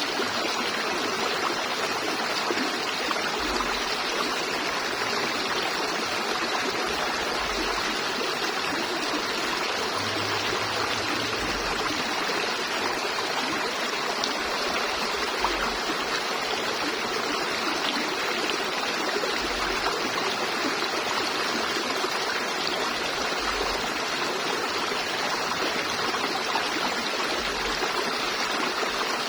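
River water flowing and splashing over rocks, a steady rushing sound.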